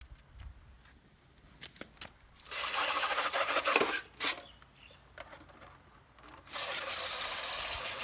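Garden hose trigger nozzle spraying in two bursts of about one and a half to two seconds each, the water hissing into and through a Shark vacuum's plastic dust cup as it is rinsed out.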